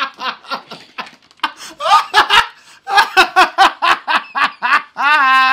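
Hearty laughter at the table: a run of quick 'ha' pulses, about five a second, ending about five seconds in with a long drawn-out vocal note.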